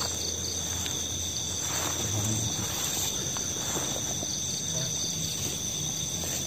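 Night insect chorus: crickets trilling steadily in a high, even drone, with faint rustling of movement through grass.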